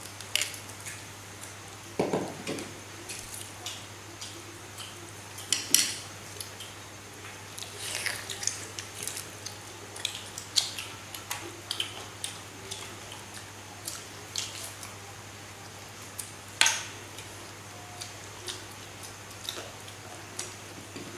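Scattered clinks and taps of metal plates and a spoon while people eat, with a sharper clatter about 6 s in and again near 17 s, over a steady low hum.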